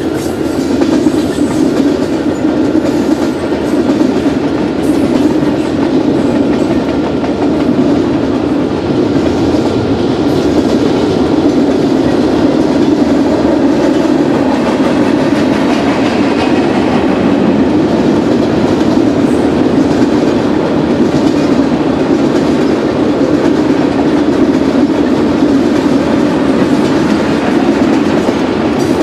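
Canadian Pacific manifest freight train's tank cars and covered hoppers rolling past close by: a steady, loud rumble of steel wheels on rail with clickety-clack over the joints.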